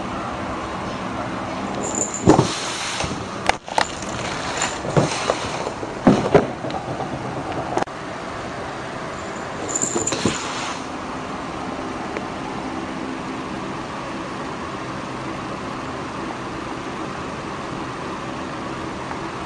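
A cat bumping and scuffing against a cardboard box on a wooden floor: a run of sharp knocks and scrapes in the first half and a few more about ten seconds in. Under it runs a steady low hum and hiss.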